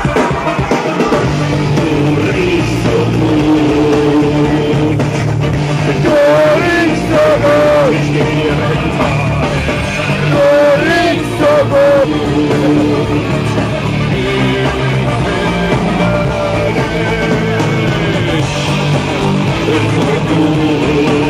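Rock music with singing and guitar, playing continuously at a steady loudness. A singer holds long wavering notes about six seconds in and again about ten seconds in.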